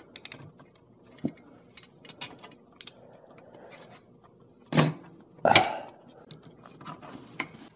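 Plastic wire-harness connectors being worked loose and pulled off a GE dishwasher's main control board, with scattered small clicks and the rustle of wires. Two louder, sharper snaps come close together a little past halfway.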